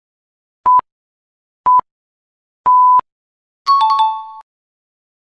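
Quiz countdown timer beeping: two short electronic beeps a second apart, then a longer beep that marks time up. About a second later comes a bright, several-toned ding that signals the correct answer.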